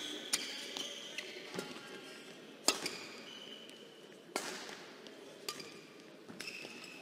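Badminton rally: several sharp racket hits on the shuttlecock a second or two apart, the loudest about two and a half seconds in, with short high shoe squeaks on the court floor between shots.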